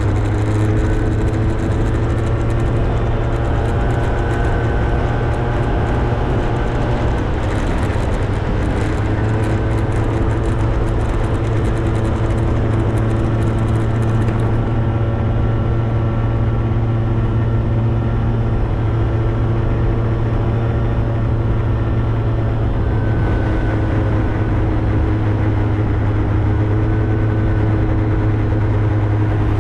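Motorbike engine running steadily while riding, its note drifting gently up and down with speed, over wind and road noise. The high hiss of the wind eases about halfway through.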